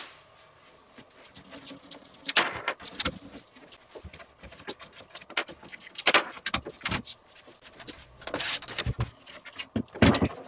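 Handling noise from a Fractal Design Define S2 Vision PC case being taken apart by hand: panels and parts clicking, knocking and rattling in several bursts.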